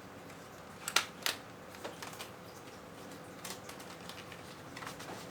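Hands handling plastic packaging of PC parts: a few sharp clicks and ticks, the two loudest about a second in and smaller ones scattered after.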